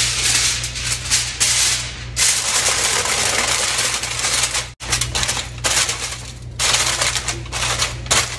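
Sheet of aluminium foil crinkling and crackling in rapid irregular bursts as it is handled and pressed over a loaf pan; the sound cuts out for an instant a little past the middle.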